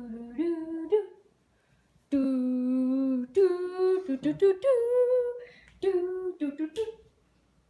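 A woman humming and singing wordless, sing-song notes, with one long held note about two seconds in and shorter sliding notes after it.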